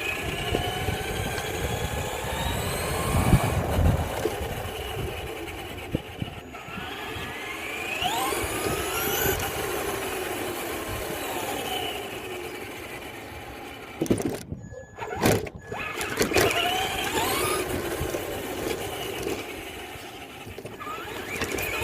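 An RC car's motor whines up in pitch several times as the car accelerates, over a steady rumble of wheels on the ground. About two-thirds through, the noise drops out briefly and is broken by a couple of sharp knocks.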